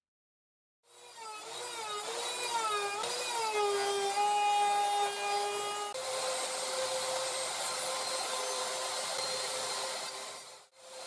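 An electric power tool running and cutting wood, with a high motor whine. About a second in, its pitch wavers and sags as the bit or blade takes load. It then runs at a steady pitch until it cuts off just before the end.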